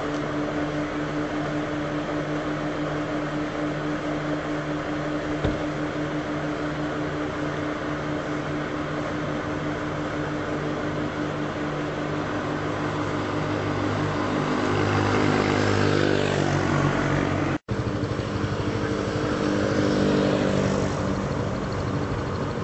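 An engine running steadily with a low hum, its pitch shifting and growing louder about two-thirds of the way in. The sound cuts out for an instant shortly after.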